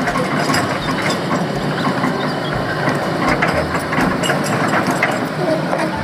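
Hitachi hydraulic excavator working, its diesel engine running under a dense metallic clicking and rattling.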